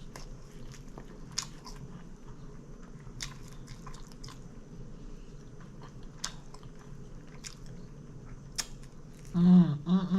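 Close-miked chewing of a sub sandwich: wet mouth clicks and smacks scattered throughout, then a hummed "mm" of enjoyment near the end.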